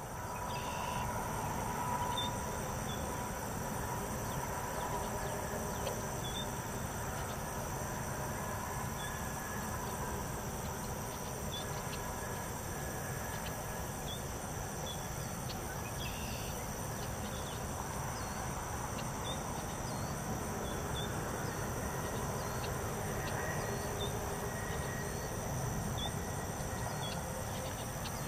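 Outdoor ambience: a steady high insect trill over an even low rumble, with faint short chirps scattered throughout.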